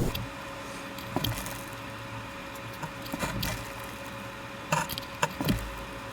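A few light clicks and taps, several close together near the end, over a faint steady hum.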